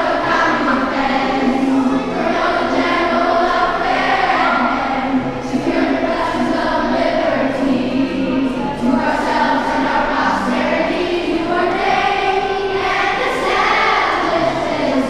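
A group of schoolchildren singing together.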